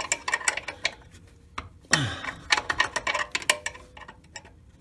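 Wrench working a brake line fitting tight on a VW Super Beetle, in uneven runs of small metallic clicks and taps.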